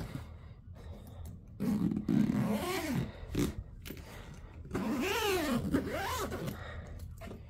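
The main zipper of a four-wheeled carry-on roller suitcase being pulled around the clamshell to close it: two long zipping runs, about two seconds in and about five seconds in, their pitch rising and falling with the speed of the pull.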